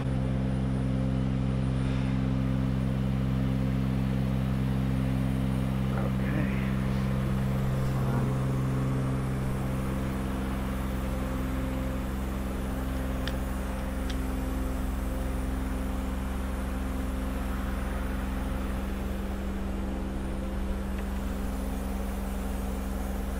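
Spider lift's engine running steadily at a constant speed, an even low drone with a few faint knocks over it.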